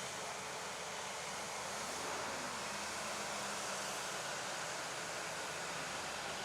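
Jet engines of a Boeing 787 running steadily at idle after start-up, heard as a constant even hiss with a faint low hum.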